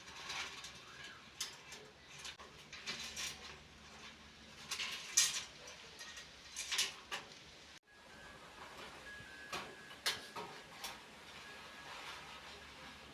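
Light clicks, taps and short scrapes of small metal parts being handled on an old PC case.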